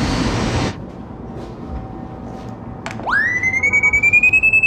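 City street traffic noise that cuts off under a second in. About three seconds in there is a click, then a high electronic beep tone that sweeps up quickly and holds, pulsing rapidly: a handheld RFID reader's beeper sounding as it reads the RFID thread.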